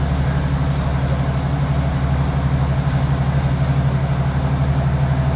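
Class 156 Sprinter diesel multiple unit heard from inside the passenger saloon while moving: its underfloor diesel engine drones steadily, with the running noise of the train over the rails.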